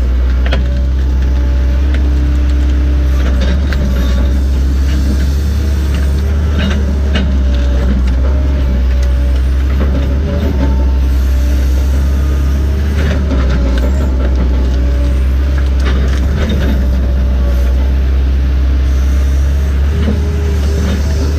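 Diesel engine and hydraulics of a boom-equipped forestry machine, heard from inside its cab: a steady, loud engine drone with hydraulic whines that shift in pitch as the boom works, and scattered knocks.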